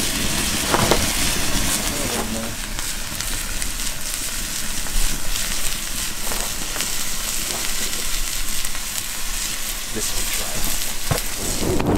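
Open wood fire crackling: a steady hiss with scattered sharp pops and snaps.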